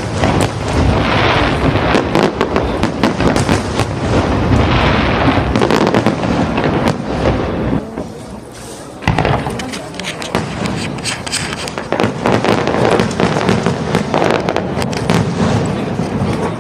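Aerial fireworks display: a dense, continuous run of booms and crackling bursts, easing briefly about eight seconds in before picking up again.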